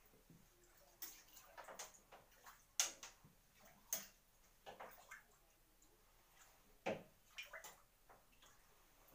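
Bathtub water splashing and lapping as a handmade jointed swimbait lure is pulled through it: about eight short, sharp splashes and ticks, the sharpest about three seconds and seven seconds in.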